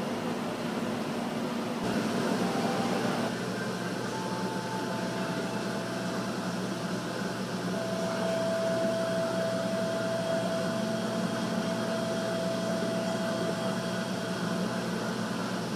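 Steady mechanical whir and hiss of aquarium room machinery such as ventilation and tank pumps, with a faint steady tone through the second half.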